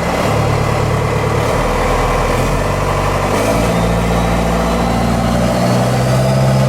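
Cummins turbo-diesel engine in a Ford F-150 running, its pitch stepping up and down as the throttle is worked. A faint turbocharger whistle rises over it in the second half.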